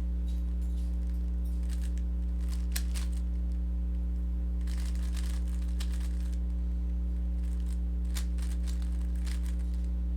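Rubik's cube being turned by hand: a few stretches of quick, faint plastic clicking as the layers turn, over a steady low electrical hum.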